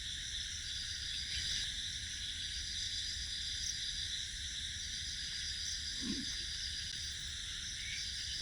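Steady night chorus of insects such as crickets, chirring in several high pitches at once, over a low rumble. A brief low sound about six seconds in.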